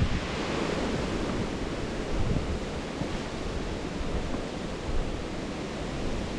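Steady rushing outdoor noise, with a low rumble throughout and no clear single source.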